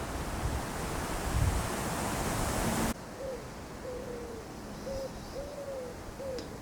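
Wind buffeting the microphone, growing stronger, then cut off abruptly about three seconds in. After it, in a quieter stretch, a run of about five short hooting notes at a steady, low pitch, each dropping slightly.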